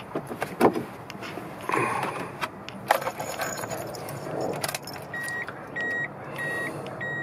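Ignition keys jangling and clicking at the Mazda Bongo's steering column. From about five seconds in, a dashboard warning beeper sounds repeatedly, about one and a half beeps a second, with the ignition switched on while the diesel's glow plugs warm up before starting.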